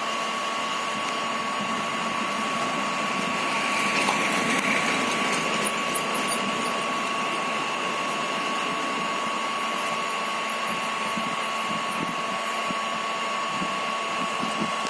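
A steady machine whir with a constant high whine over a hiss, like a small electric motor or blower running.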